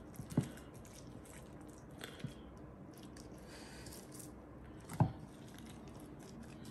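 Gloved hand squishing raw chicken breast in a thick, oily spice marinade: faint wet squelching as the meat is worked and coated. Two soft knocks stand out, one about half a second in and a louder one about five seconds in.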